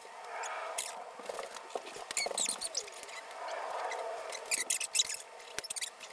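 Plastic packing restraints being cut and pulled loose by hand: irregular small clicks and scratches, in clusters about a second in, around two and a half seconds and near the end, over a faint rustle.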